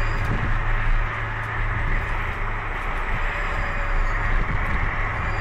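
Fully electric Porsche Formula E race car driving: a steady rushing of tyres and air with a faint high electric whine from its powertrain.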